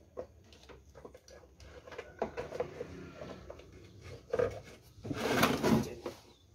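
Hard plastic knocks and clicks as the red control-panel housing of a Swan F16 electric knapsack sprayer is pressed back onto its plastic tank, then a louder scraping rub of about a second near the end as the sprayer is shifted and tilted.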